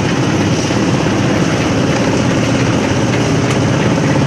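Engine of a portable drum concrete mixer running steadily at a constant speed, as a loud, even drone.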